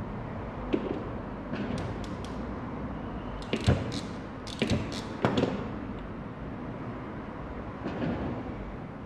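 Scattered clicks, taps and knocks of parts and tools being handled, a cluster of them in the middle, over a steady background hiss.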